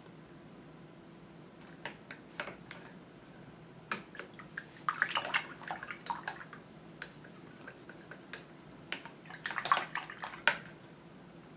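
A paintbrush being rinsed in a jar of water: small splashes and drips in two short spells, about five and ten seconds in, with scattered light clicks between them.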